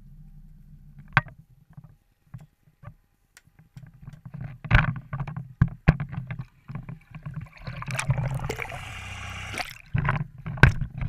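Knocks and thumps of a handheld action camera being moved around on a fishing boat, with a low steady hum at the start and about two seconds of rushing noise around eight seconds in.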